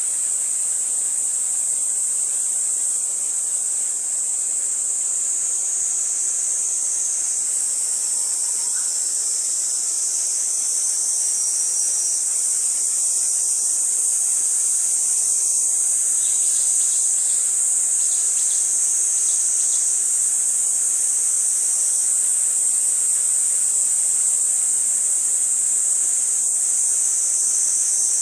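A steady, high-pitched insect chorus, with a few faint ticks about two-thirds of the way through.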